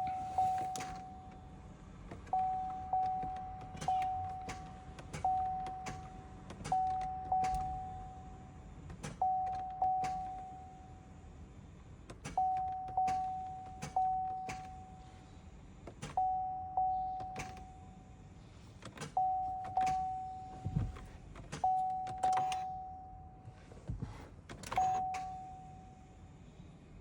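Cadillac Escalade's dashboard warning chime dinging repeatedly, each ding ringing out and fading, with sharp clicks in between and no engine cranking: the no-crank, no-start fault that a failed starter caused.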